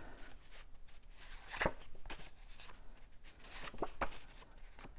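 Cardstock pieces being handled: light paper rustling with a few short taps, the loudest about a second and a half in and two more near four seconds in.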